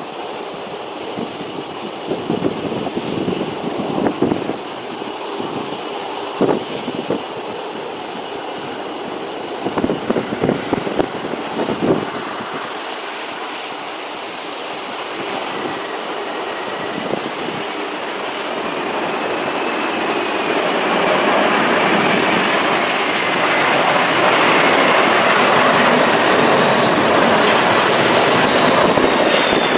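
Gusty wind buffeting the microphone, then a jet airliner on approach to land growing steadily louder, its engine whine sliding down in pitch near the end as it passes.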